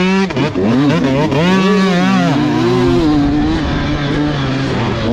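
Dirt bike engine revving hard on a motocross track, heard from on board: the pitch climbs and drops twice as the throttle opens and closes, then holds lower and steadier from about three seconds in.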